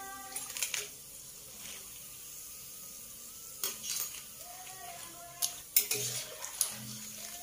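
Peanut peyek deep-frying in hot oil in a stainless steel wok, the oil sizzling steadily, while a metal spatula turns the crackers and clinks and scrapes against the pan a few times: about half a second in, around four seconds in and near six seconds.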